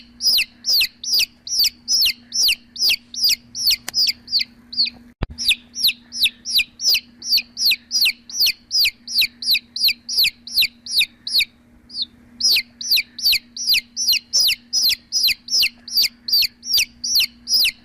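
A chick peeping over and over: short, high calls that drop sharply in pitch, about three a second, pausing briefly twice. A faint steady hum lies underneath.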